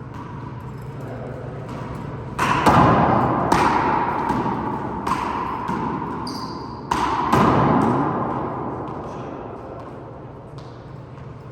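Rubber handball smacked by hand and slapping off the walls of a four-wall court, each hit ringing with echo: a burst of hits about two and a half seconds in and another about seven seconds in.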